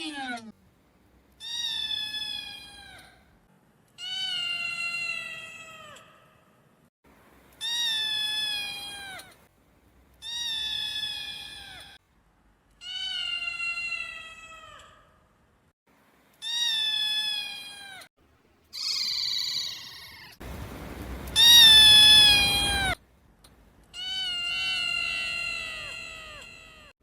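Cat meowing over and over: about nine separate meows a couple of seconds apart, each falling in pitch. The loudest, about three-quarters of the way through, is longer and harsher than the rest.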